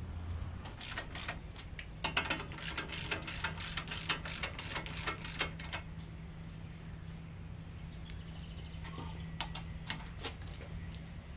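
Hand ratchet clicking in quick irregular runs while the brake caliper pins are tightened, then a short fast ratchet run and a few scattered clicks near the end.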